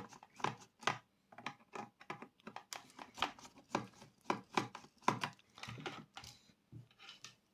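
A screwdriver undoing two small screws on an intercom unit: an irregular run of small clicks and scrapes, several a second, stopping just before the end.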